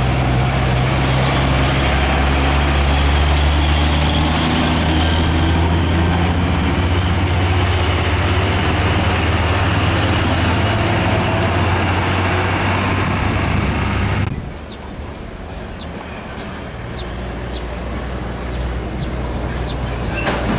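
Diesel engine of a Hino 500 truck passing close by and pulling away: a loud, deep, steady engine note over tyre and road noise. About two-thirds of the way through it cuts off abruptly to quieter traffic noise, and another truck's engine grows louder near the end.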